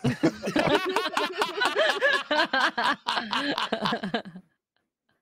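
Several people laughing and chuckling together, their laughs overlapping, breaking off about four and a half seconds in.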